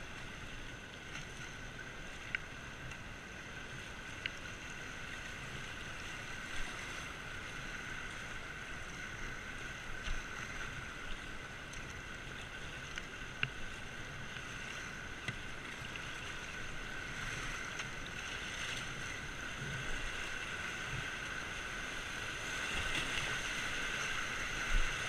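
Rushing river water around a whitewater kayak as it is paddled downstream, with paddle-blade splashes and occasional sharp knocks. It grows steadily louder toward the end as the boat runs into rapids.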